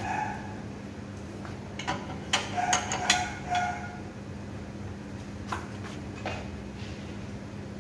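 Several sharp metallic clinks with a brief ring: a metal hand tool knocking against the steel parts of a motor-driven mixer. They cluster about two to four seconds in, with a couple of fainter clicks later, over a steady low hum.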